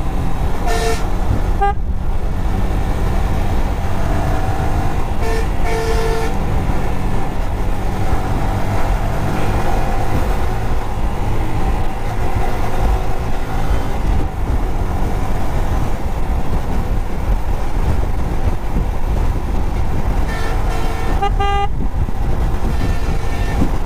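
Wind buffeting the microphone and a Yamaha sport motorcycle's engine running at highway speed while accelerating. Short vehicle-horn toots sound about a second in, twice around five to six seconds in, and again a couple of seconds before the end.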